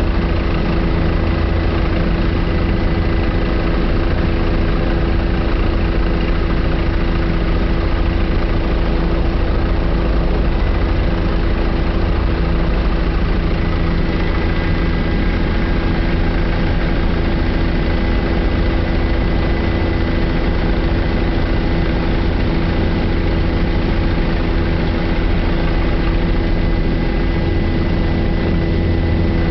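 Helicopter engine and rotor noise heard from inside the cabin: a loud, steady drone with a thin, constant high whine over it.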